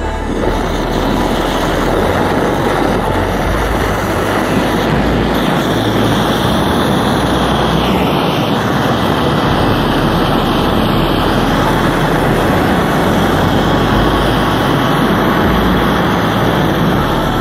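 Gas torch burner running with a steady rushing hiss as its flame plays on a melted plastic charger.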